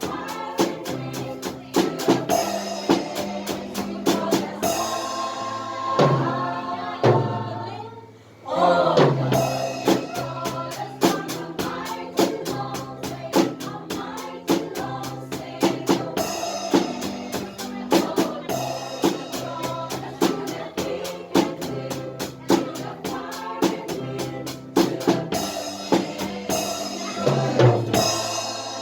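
A drum kit played along with a song that has singing: steady kick, snare and rimshot strokes over a bass line, with a short drop in the music about eight seconds in.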